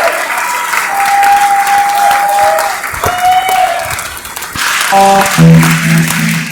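Audience applauding, with a few long calls from the crowd over the clapping. About five seconds in, the band's instruments start the next song with steady low notes.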